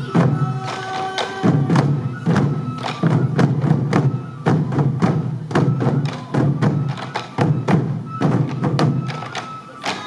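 A group of hip-slung sansa taiko drums beaten with sticks in a steady dance rhythm: heavy drum strokes about once a second with sharp stick strikes between them. A high bamboo-flute (fue) melody plays over the drumming.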